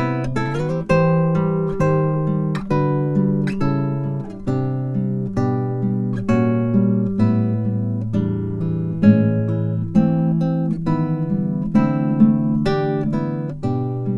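Background music: an acoustic guitar playing plucked notes and chords at a steady, unhurried pace, each one ringing out and fading.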